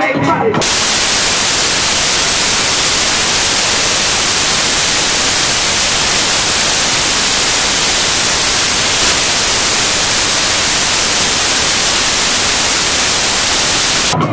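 Loud, steady static hiss from corrupted video data, cutting in abruptly about half a second in and replacing the hip hop music.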